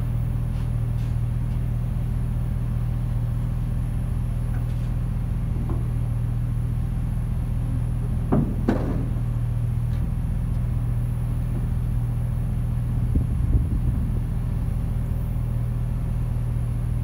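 A long freight train of covered hopper cars creeping through a grade crossing: a steady low rumble and hum, with a sharp metallic clank about halfway through and a few low knocks a few seconds later.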